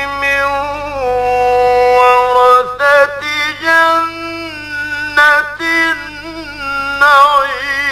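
A man reciting the Quran in melodic tajweed style, drawing out long held notes with short breaks between phrases and a wavering, ornamented run near the end.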